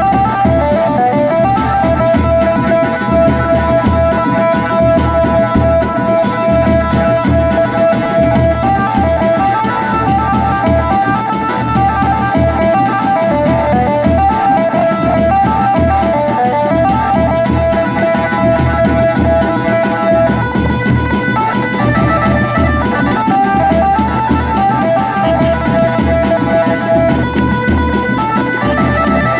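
Band baja wedding band playing a 'ringtone band' style tune: a quick guitar-like melody of short repeated notes and held notes over a steady drum beat.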